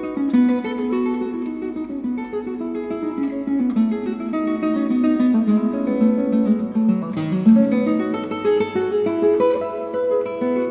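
Background music: acoustic guitar, plucked notes and strums in a flamenco-like style.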